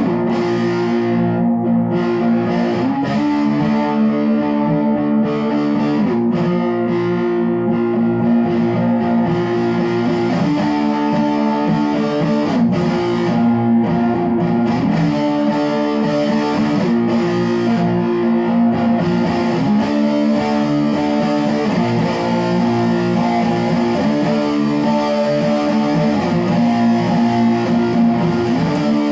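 Guitar playing held, ringing chords that change every two to three seconds.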